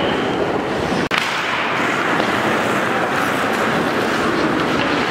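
Ice hockey game sounds in an echoing rink: skate blades scraping the ice and sticks clattering, broken by a brief dropout about a second in.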